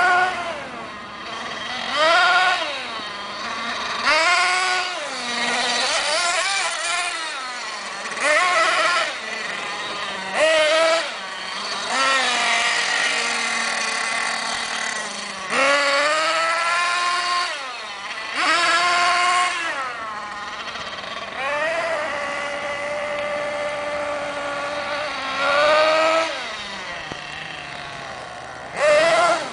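Thunder Tiger MTA4 S50's 8.2 cc two-stroke nitro engine screaming at high revs in repeated bursts, its pitch climbing and dropping every few seconds as the RC truck is throttled up and off.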